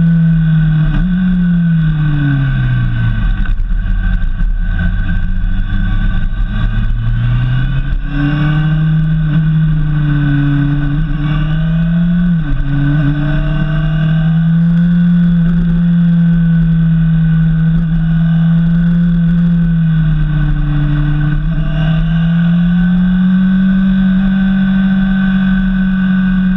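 Honda CBF 600's inline-four engine running under a motorcycle rider on a mountain descent. The engine note drops in the first few seconds and stays low for a while, then rises about eight seconds in and holds fairly steady, with a brief dip and a higher stretch late on. A steady low wind rumble runs beneath it.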